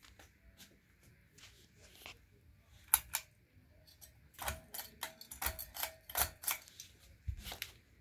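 Pull chain on a 1988 Hunter Passport ceiling fan being tugged: a run of sharp clicks and chain rattles, densest in the second half, some with a short bright ring.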